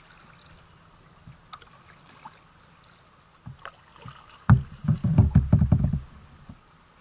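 Kayak paddle dripping and dipping lightly in the water, then about four and a half seconds in a sharp knock and a quick run of heavy knocks and rattles lasting about a second and a half as the paddle is laid down across the kayak.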